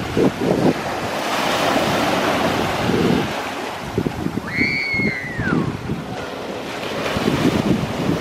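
Wind buffeting the microphone in uneven gusts over a steady rush of surf. About halfway through, a single high tone rises briefly, then slides down in pitch for about a second.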